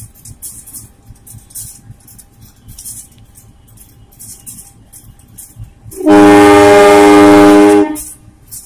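Train locomotive horn: one loud, steady blast of about two seconds, starting about six seconds in, over faint background hiss.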